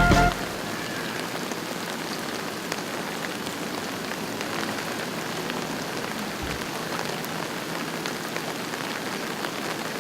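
Steady rain falling on the surfaces of a yard: an even hiss with scattered drop ticks.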